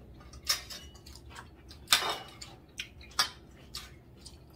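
Knife and fork clinking and scraping on plates as steak is cut and eaten: a handful of sharp, irregular clicks, the loudest about two seconds in.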